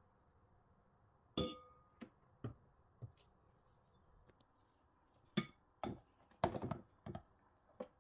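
Scattered sharp clinks and knocks of kitchenware being handled. The loudest comes about a second and a half in and has a short metallic ring; a quick run of knocks follows from about five to seven seconds in.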